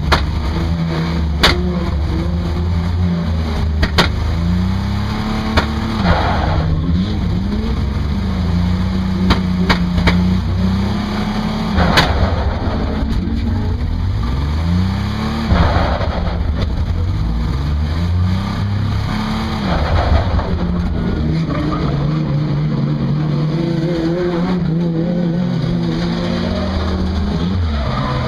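Car engine heard from inside the car, revving up and dropping back again and again as it runs through the gears, with a few sharp knocks along the way.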